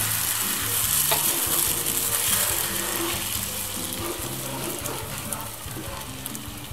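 Spinach crêpe batter sizzling in a hot buttered frying pan just after being poured in, with a metal spoon spreading it around the pan. The sizzle is loudest at first and fades.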